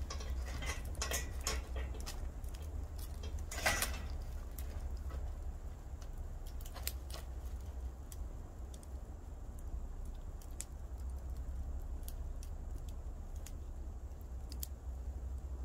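Wood campfire burning, with scattered sharp crackles and pops, busiest in the first few seconds, over a steady low rumble.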